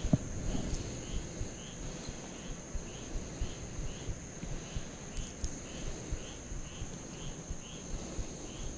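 Night insects: a steady high trill, with a second caller chirping about twice a second, over a faint low rumble.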